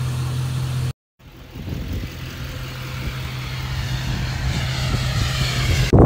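Truck engine running steadily, cut off abruptly about a second in. After a brief gap, a rising rush of road-vehicle noise slowly grows louder.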